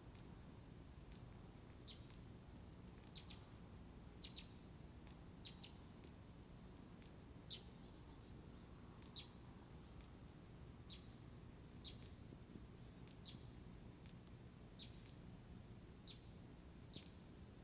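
A small songbird giving short, high chip notes at an irregular pace, roughly one a second and sometimes two in quick succession, over a faint background hiss.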